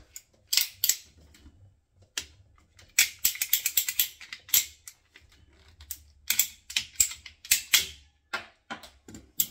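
Ratcheting plastic pipe cutter clicking in quick runs as its handles are squeezed to cut through grey plastic Hep2O pipe, with the busiest run of clicks a few seconds in and another near the end.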